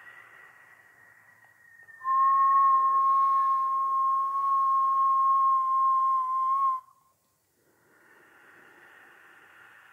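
A person whistling a single steady note while breathing in through pursed lips; it is held for about five seconds and cuts off suddenly. A soft breath hiss is heard before it and after it.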